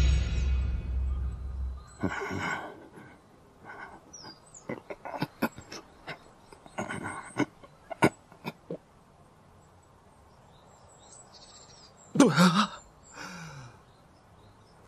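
Faint birds chirping and scattered light clicks and knocks, with a sharp click about halfway through as a gatepost intercom button is pressed. Near the end comes a short, loud vocal sound like a sigh. The tail of a music cue fades out at the start.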